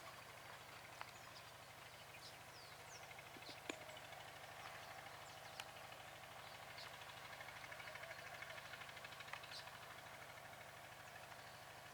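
Faint birds chirping: scattered short chirps and quick whistled glides, over a faint steady low hum.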